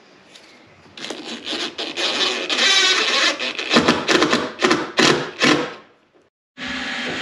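DeWalt cordless drill/driver run in a series of short, uneven bursts, driving screws into a boat's transom. It stops shortly before the end, and after a moment of silence a steady hiss starts.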